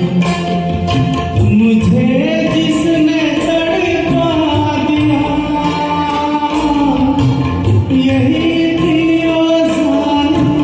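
A singer holding long, gliding melodic notes over a Hindi film-song karaoke backing track.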